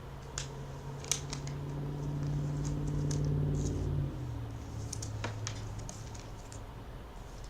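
Sharp clicks and scratchy rustles of trading cards and packaging being handled, over a steady low hum that swells and then drops slightly in pitch about four seconds in.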